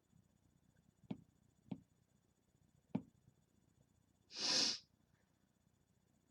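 Three small clicks, then a short breathy sniff a little past the middle, the loudest sound here.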